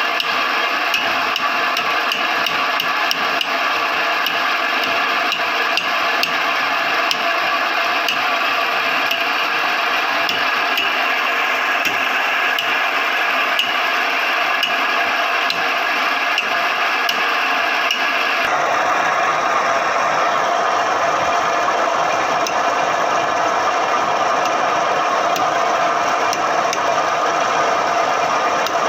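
Homemade banana-stem grinding machine, built from a band saw and driven by an electric motor through a V-belt and pulley, running steadily with a dense rattle. About two-thirds through the sound changes abruptly to a smoother, steadier running of the machine.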